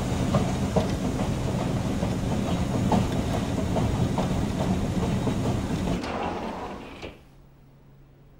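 Rotating watch-testing machine running: a steady mechanical rumble with irregular light clicks and rattles, which fades and stops about seven seconds in, leaving a faint low hum.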